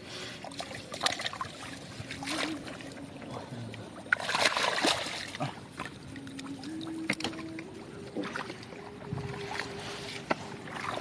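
Water splashing and sloshing in irregular bursts as someone works in shallow floodwater, the loudest burst about four to five seconds in, with a few sharp knocks. A faint steady hum sits underneath in the second half.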